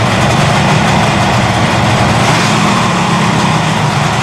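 1972 Kawasaki S2 350's three-cylinder two-stroke engine idling steadily just after a quick start without choke. It runs evenly, with the middle cylinder, whose carburetor was just cleaned, now seeming to work.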